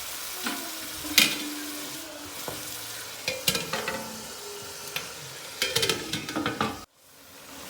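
Tomatoes, onions and ginger-garlic paste sizzling in hot oil in a cooking pot, with sharp ringing metal clinks from utensils and the pot, loudest about a second in and in clusters later. The sound cuts off abruptly near the end.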